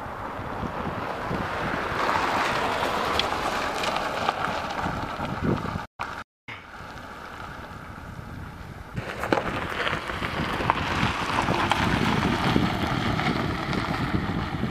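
A vehicle driving on a rough, broken road surface: steady road and wind noise with frequent knocks and jolts. The sound cuts out briefly about six seconds in.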